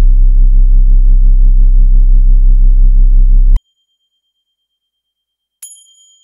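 A very loud, deep synthesizer drone, held steady for about three and a half seconds, cuts off suddenly. After two seconds of silence a single high ding rings out near the end.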